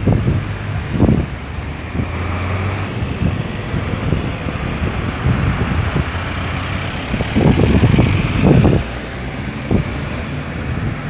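Road traffic moving through a busy roundabout: a steady mix of car, truck and bus engines and tyre noise, with low gusts of wind buffeting the microphone, strongest about two-thirds of the way through.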